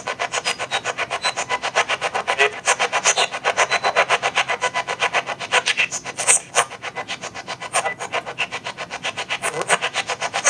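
Spirit box sweeping through radio stations: a rapid, even chopping of radio static and clipped fragments of sound, about seven bursts a second.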